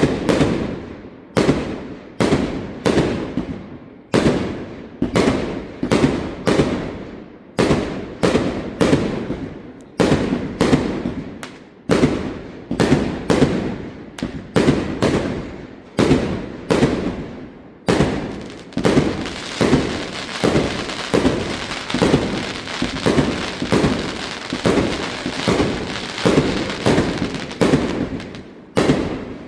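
Fireworks display: aerial shells bursting one after another, roughly one to two bangs a second, each trailing off in an echo. About two-thirds of the way through, a continuous crackling joins the bangs.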